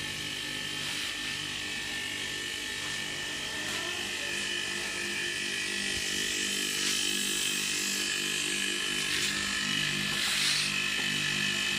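Air-conditioner rotary compressor, rebuilt as a homemade air compressor, running steadily with an even electric hum while it pumps up the air tank. A faint hiss runs under it from a fitting that is leaking air.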